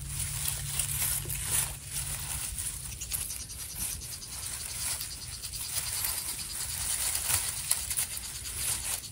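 Insects chirring in a field, a fast steady trill, with occasional brief rustles close by.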